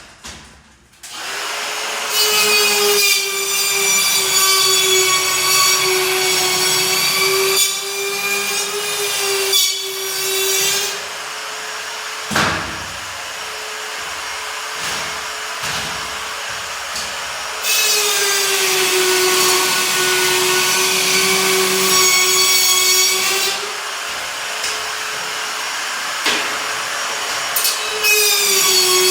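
DeWalt DCS551B cordless drywall cut-out tool running with a steady high motor whine while its spiral bit routs off excess gypsum board. The sound alternates between louder, hissier stretches of cutting and quieter stretches. There is a single sharp knock about a third of the way through.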